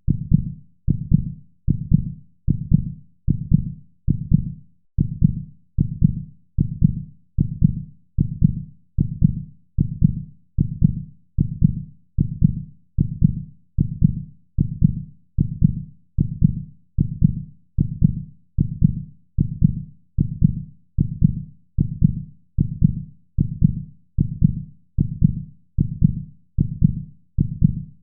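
Heartbeat: low, even double thuds, lub-dub, repeating steadily at about one beat a second.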